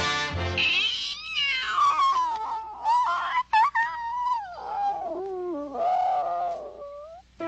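A drawn-out, cat-like cartoon wail that slides and wavers up and down in pitch, breaking off briefly about halfway through.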